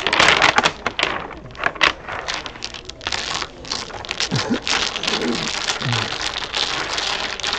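Dominoes shuffled face down on a wooden table by hand: a dense, continuous clatter of tiles clicking and sliding against each other.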